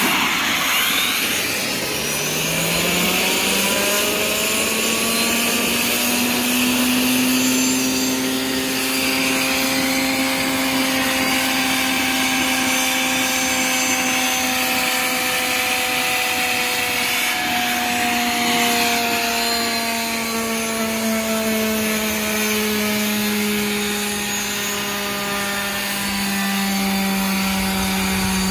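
Small homemade steam turbine spinning up on steam from a wood-stove boiler at about 100 psi. Its whine rises in pitch over the first three seconds, then holds steady and sags slightly from about twenty seconds in, over the hiss of escaping steam.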